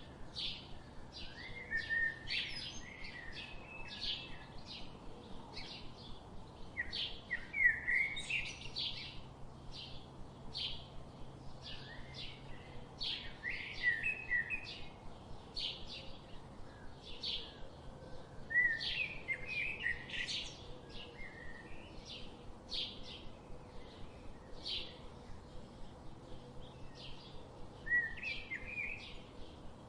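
Songbirds chirping: a steady run of short, high chirps, two or three a second, with a louder warbling phrase from another bird breaking in every few seconds.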